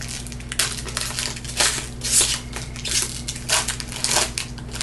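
Foil wrapper of a Topps football card pack being torn open and crinkled by hand: a run of irregular crackling rustles.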